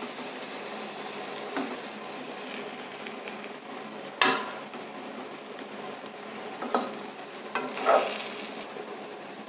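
Stuffed okra sizzling in oil in a wok-shaped pan while a metal ladle turns the pieces over. The ladle scrapes and knocks against the pan about four times, loudest about four seconds in.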